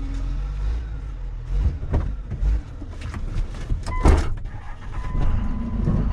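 A vehicle engine running low and steady, with several knocks and clunks and one louder clatter partway through.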